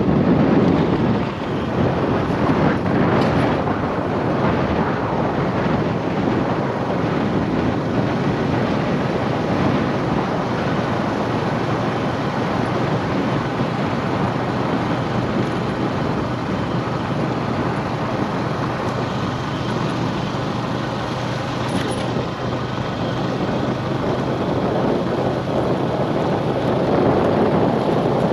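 Steady motor-vehicle noise: an engine running with a constant low hum under even road noise.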